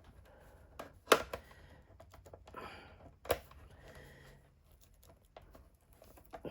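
Screwdriver working a tight screw in a hard plastic doll body: scattered clicks and scrapes of metal on plastic, with a sharp click about a second in and another a little past three seconds.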